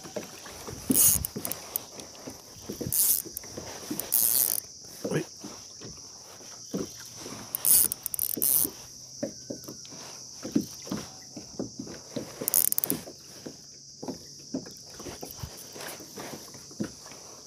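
Close handling noise: clothing rustling and rubbing against the camera, with scattered clicks and knocks on the plastic kayak and several brief louder scrapes, over a steady high-pitched drone.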